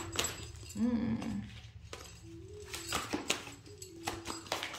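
Oracle cards being shuffled and drawn, a run of light clicks and flicks, with several short held tones over them.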